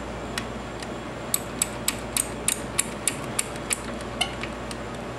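Ratchet wrench clicking in a run of about four clicks a second, snugging up the camshaft cap bolts by hand ahead of torquing.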